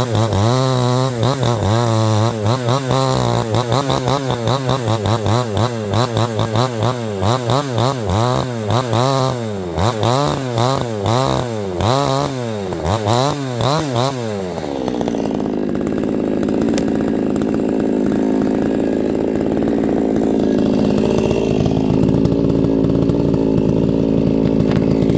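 Small homeowner chainsaw cutting through a dense log, the throttle feathered in quick pulses so the engine pitch rises and falls about twice a second; this is done to keep the bar from getting pinched as the cut finishes. About fifteen seconds in, the throttle is released and the saw settles to a steady idle.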